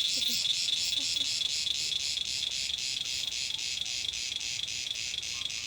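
Insects chirping in a steady, high-pitched chorus that pulses evenly several times a second.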